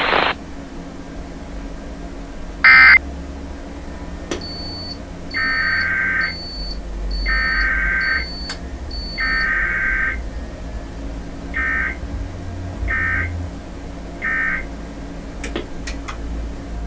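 Emergency Alert System SAME data bursts: three longer buzzing digital bursts about a second apart, then three short ones, the pattern of an alert header followed by an end-of-message code. A single loud short electronic burst comes a few seconds before them.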